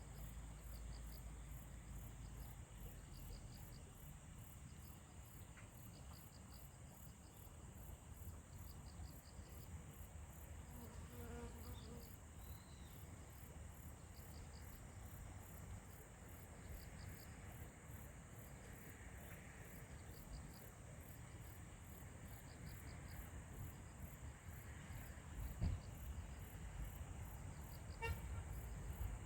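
Insects chirping, likely crickets: a fast, even high trill with short groups of pulses repeating beneath it, over faint low rumble. A single soft thump sounds near the end.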